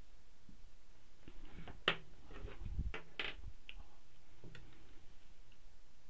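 Marker writing on a whiteboard: a few short taps and scratchy strokes, with one sharper click about two seconds in and some soft low bumps.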